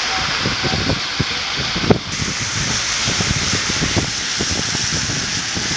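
Heavy rain falling on a city street, a steady hiss, with cars driving through the wet road, and many short low thumps of wind and drops against the microphone. The hiss changes abruptly about two seconds in.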